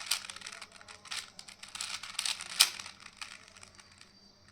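Plastic 4x4 Rubik's cube being turned by hand: irregular clicking and clattering of the layers as they rotate, with the sharpest click a little past halfway, then the turning dies away near the end.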